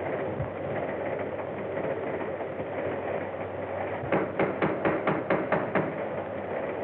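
Knocking on a door: a quick run of about nine raps, starting about four seconds in and lasting under two seconds, over the steady hiss and hum of an old film soundtrack.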